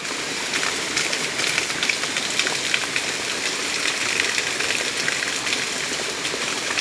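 Water jetting hard from the open end of a plastic water pipe and splashing onto rocks, a steady rushing spatter.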